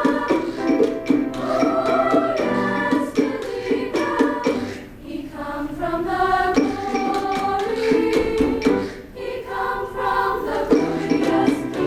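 Women's choir singing, in phrases with two brief dips between them, about five and nine seconds in.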